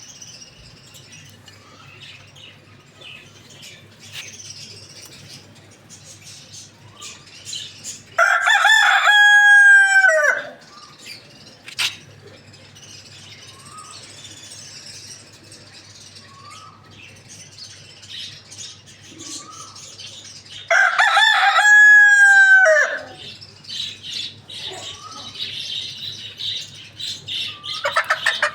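A rooster crowing twice, each crow about two seconds long and roughly twelve seconds apart, over quieter short bird calls.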